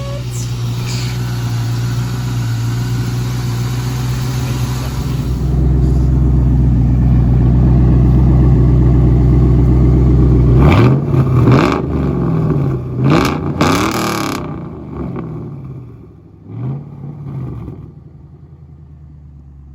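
2001 Mustang GT's 4.6-litre V8, fitted with a new 70mm BBK throttle body and Trick Flow plenum, running steadily, then revved in several quick throttle blips from about ten seconds in, dropping back to idle near the end.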